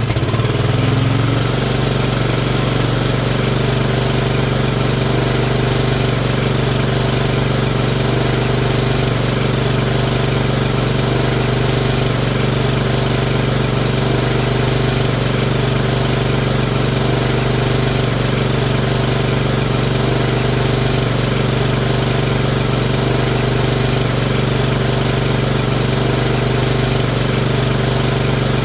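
Lawnmower engine that has just started, its pitch rising briefly in the first second before it settles into steady running at a constant speed.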